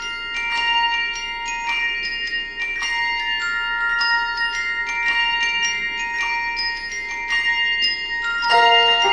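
Tuned handbells playing a melody, each note struck and left ringing so the tones overlap; lower bell notes join near the end.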